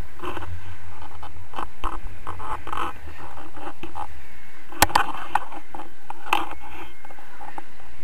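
Wind buffeting the action camera's microphone in paraglider flight: a steady low rumble, with scattered knocks and scrapes of the camera mount being moved, two sharper ones about five and six and a half seconds in.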